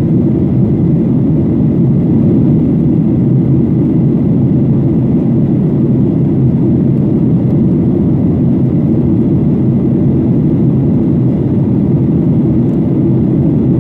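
Cabin noise of a Boeing 737-800 in flight: its CFM56-7B turbofan engines and the airflow over the fuselage make a loud, steady, low rumble without any change.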